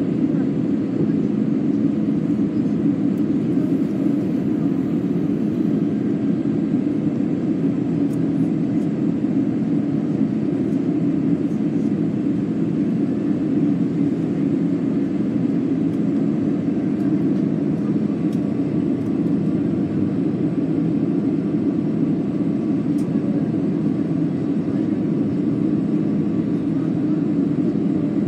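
Steady cabin noise inside a Peach Aviation Airbus A320 on approach: an even, low rumble of jet engines and airflow heard from a window seat over the wing.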